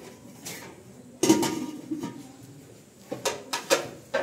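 Metal cookware and dishes clanking: a ladle and lid knocking on an aluminium cooking pot, and plates set on a metal tray. There are about half a dozen sharp knocks with a short ring; the loudest comes about a second in, and a quick cluster follows near the end.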